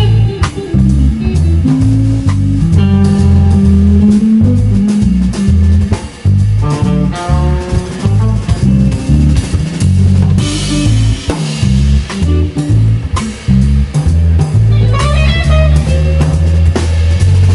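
Live band playing electric guitar, electric bass and drum kit: a guitar plays melodic lines, with a note bent upward near the end, over steady bass notes and drums, with a cymbal wash about ten seconds in.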